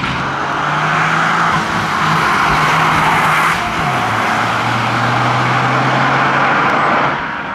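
Toyota GR Yaris's 1.6-litre turbocharged three-cylinder engine driven hard through a corner, with tyre noise under it. The engine note dips sharply about four seconds in, as at a gear change, then holds steady again.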